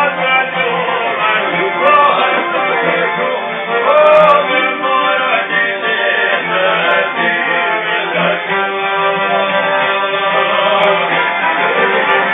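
Live folk music from long-necked plucked lutes and a violin playing together, a dense strummed texture with gliding held notes about two and four seconds in.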